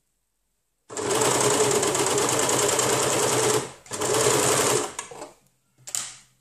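Electric sewing machine stitching in fast runs while a binding is sewn round a knit neckline. It is silent for about the first second, then runs steadily for about three seconds, pauses briefly, runs again for about a second, and gives a short burst near the end.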